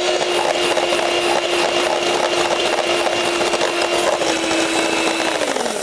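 Electric hand mixer running steadily as its beaters whip cream in a glass bowl, then winding down near the end as it is switched off.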